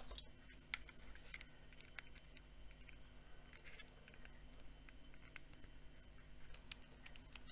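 Faint scratching and a few small clicks of a thin pry tool working along the seam of a handheld fan's white plastic housing to prise it apart.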